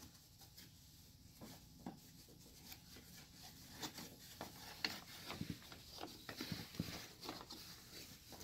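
Faint scratching and rustling on a brown paper bag, fingers working at its torn end, getting busier after a few seconds.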